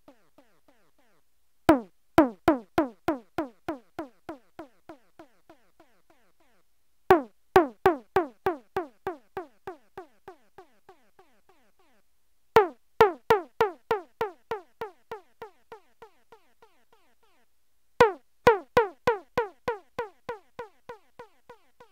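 Yamaha PSS-170 keyboard's synth tom voice played in four bursts of quick repeated hits, about three a second, each hit a short falling pitch sweep. Each burst starts loud and fades out over a few seconds.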